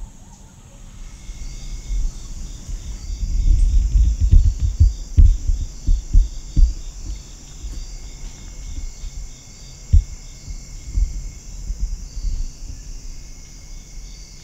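Evening insect chorus: a steady high-pitched trill with an evenly pulsing chirp beneath it. Irregular low thumps and rumble, densest a few seconds in, with one sharp knock near the middle.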